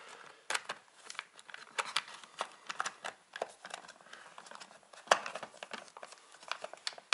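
Hands handling a chainsaw's plastic top cover as it sits on a crinkling plastic sheet: irregular light clicks, taps and rustles, with one sharper plastic click about five seconds in.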